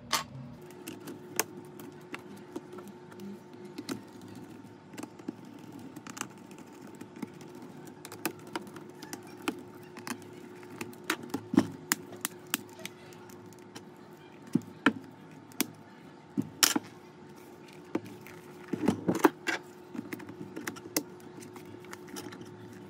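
Irregular sharp clicks and taps of small hard parts being handled on a laptop, a few of them much louder, over a steady low hum.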